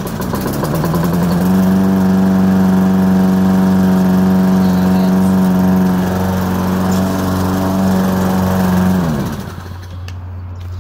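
Toro push lawn mower's small gasoline engine speeding up over the first second or two, then running steadily at full speed, and winding down about nine seconds in to a lower hum. It keeps running after a carburetor clean-out and a new washer under the bowl bolt, where before it would start and then die.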